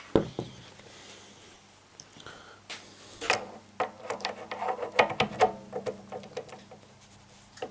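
Knurling tool and its spare knurl wheels being handled: a knock at the start, then a run of small metallic clicks and clinks with a brief ring, busiest around the middle.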